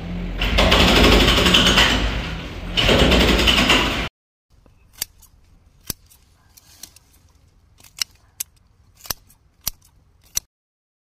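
Hydraulic breaker on an excavator arm hammering at a brick-and-concrete wall, loud and continuous for about four seconds. After a sudden cut comes a quiet stretch of scissors snipping through ginger stalks, about eight sharp snips.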